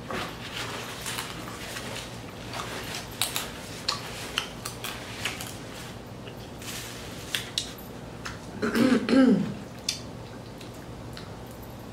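Blue crab and shrimp being eaten by hand: scattered small clicks and cracks of shell, with mouth sounds, and a short vocal sound like a throat clearing about nine seconds in, the loudest thing.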